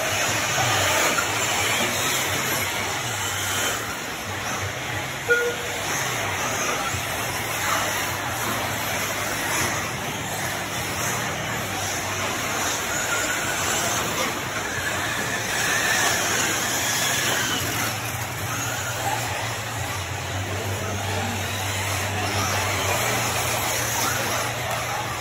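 Several 1/8-scale electric RC truggies racing on a dirt track: brushless motors and drivetrains whining up and down in pitch as they accelerate and brake, with tyres scrabbling on dirt. A sharp knock about five seconds in.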